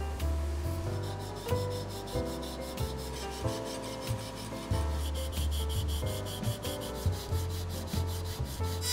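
Hand sanding a walnut drawer-organizer grid with a sanding block: quick back-and-forth rasping strokes of sandpaper on wood, about four a second, starting about a second in.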